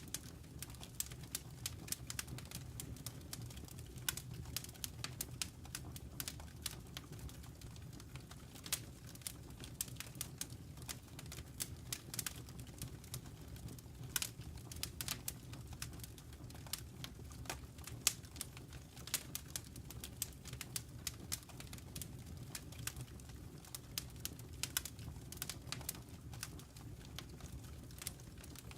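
Wood fire crackling in a fireplace: irregular sharp pops and snaps, several a second, over a low steady rumble of the burning fire.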